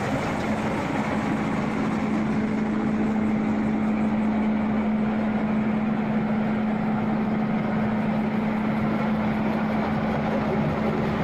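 Case 970 tractor's diesel engine running steadily, driving a New Holland 354 grinder-mixer through the PTO, with a constant low hum under the broad clatter of the machinery.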